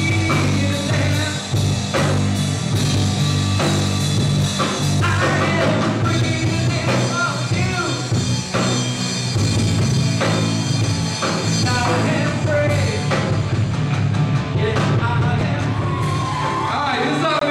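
Live rock band with a singer playing loud through a PA system, picked up by a camcorder's built-in microphone that doesn't capture loud sound clearly.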